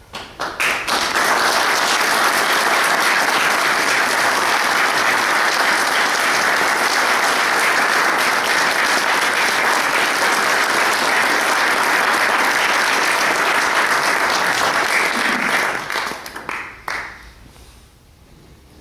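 Audience applauding. The clapping starts suddenly and holds steady for about fifteen seconds, then thins out to a few last claps and stops.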